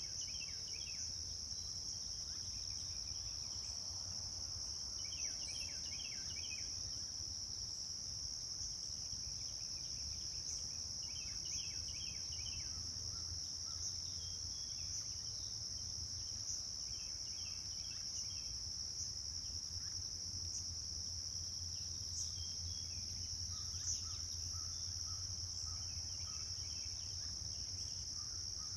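A steady high-pitched insect drone, like crickets or katydids, runs over a low background rumble. Short bursts of quick chirping come every five or six seconds.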